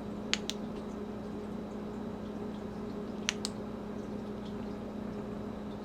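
Two quick double clicks, one pair near the start and another about three seconds in, from a Streamlight ProTac 2 flashlight's tailcap switch being pressed to cycle it on and off. A steady low hum runs underneath.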